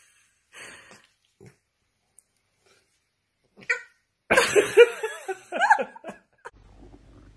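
French bulldog puppy making short yelps and grunts in play while mouthing a hand, then a louder run of yapping about four seconds in.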